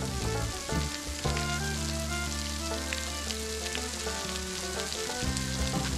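Water from a waterfall dripping and spattering steadily off a rock overhang, a fine hiss like a shower, with soft background music holding chords that change about a second in and again near the end.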